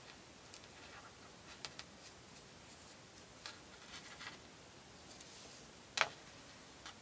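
Faint rustles and light clicks of cords being handled and worked through a knot by fingers, with a louder brief sound about six seconds in as a cord is pulled through quickly.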